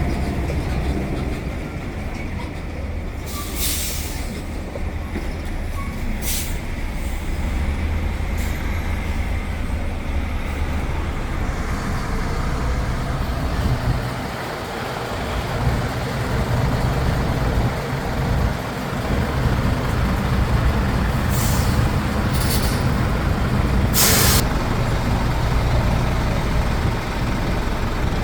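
Container truck's diesel engine running with a steady low drone that dips for a moment about halfway through and then picks up again. Short sharp hisses of compressed air from the truck's air system break in several times, the longest a few seconds before the end.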